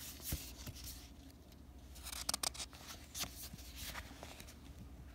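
Pages of a picture book being turned by hand: paper rustling in a few short spells, the loudest a little over two seconds in.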